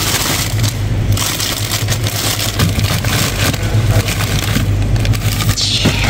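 Clear plastic bag of frozen chicken wings crinkling and rustling as it is handled, the noise coming and going a few times, over a steady low hum.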